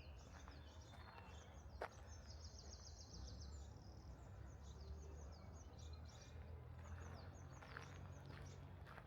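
Faint songbirds chirping, with a rapid trill about two seconds in, over a steady low rumble. There is a single sharp tick just before the trill and faint footsteps on a path near the end.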